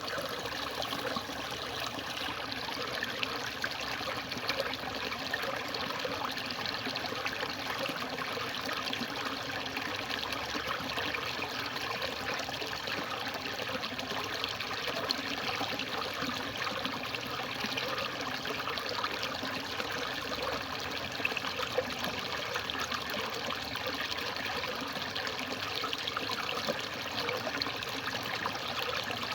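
Water trickling and splashing steadily, a continuous patter with no pauses.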